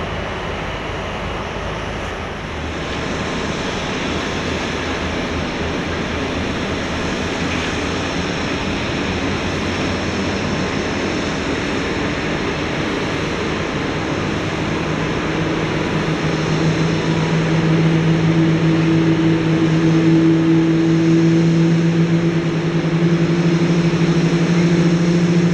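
Boeing 787-8 airliner under pushback by a towbar tug: a steady rushing noise of aircraft and ground machinery that slowly grows louder, with a low steady hum that comes in past the middle and strengthens toward the end.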